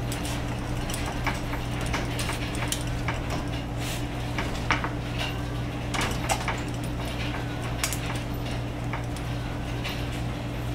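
Irregular metallic clinks and rattles of a kinkajou and a bushbaby clambering on a wire-mesh cage and its metal fittings, over a steady low hum.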